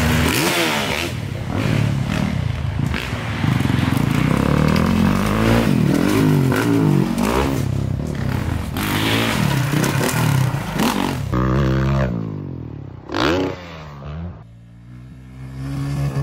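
Dirt bike engine revving up and down on the track, its pitch climbing and falling with each throttle change. About twelve seconds in the sound drops away, leaving one short rev and then a quieter stretch.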